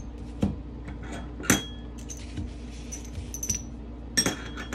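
Metal sewing tools handled while fabric is cut out: about five sharp metal clicks and clinks, irregularly spaced about a second apart, each with a brief high ring.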